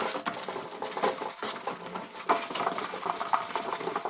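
Dirt being scrubbed and scraped out of the gasket channel of a refrigerator door: a busy run of quick, irregular scrapes and clicks.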